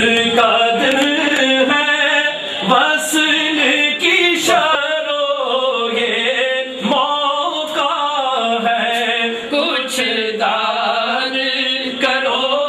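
Voices singing a manqabat, a Sufi devotional song in praise of Waris Ali Shah, in a chanting style.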